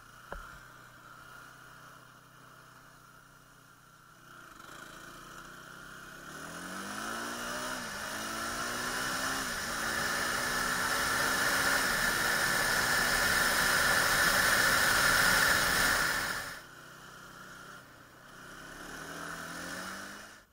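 A Honda TRX450R sport quad's single-cylinder four-stroke engine accelerates hard through three upshifts, its pitch climbing and dropping back at each shift. Heavy wind noise rushes over the helmet camera's microphone at speed. Near the end the engine falls off suddenly, then revs up briefly once more.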